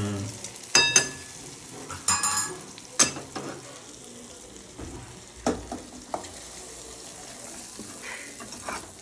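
Steel ladle stirring and scraping a small aluminium pan of tomato-spice tadka for sambar, with a faint sizzle under several sharp metal clinks, one ringing about a second in. Near the end the tadka is scraped into the pot of dal.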